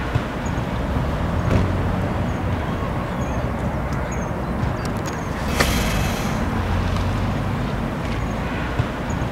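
Road traffic with a city bus and a car going by: a steady low vehicle hum over road noise, with a short hiss about halfway through.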